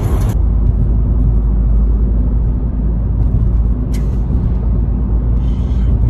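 Steady low rumble of road and engine noise inside a moving car's cabin, with a brief click about four seconds in.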